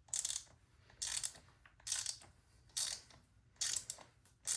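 Ratchet wrench with a 27 mm socket clicking in short bursts, about one a second, while it unscrews a motorcycle fork's spring-loaded top cap a little at a time.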